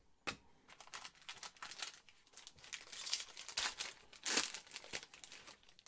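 Foil wrapper of a Panini Mosaic football card pack being crinkled and torn open by hand, a run of crackling rips with the loudest tear about four seconds in.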